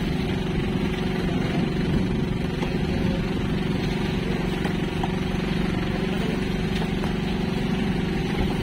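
A boat's engine idling steadily, an even drone that does not change pitch or level.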